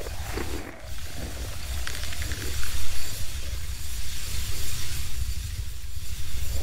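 Loose seashells crunching and clattering underfoot as someone walks across a thick layer of them, a dense crackling with a few sharper clicks, over a steady low rumble.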